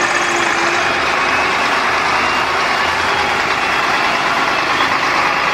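Truck engine running steadily: a loud, dense, even engine noise with no revving.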